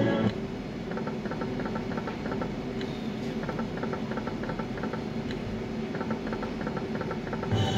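Magic Guardians video slot machine playing through automatic free spins: several runs of quick electronic ticks as the reels spin and stop, over a steady low hum. Near the end a louder jingle starts.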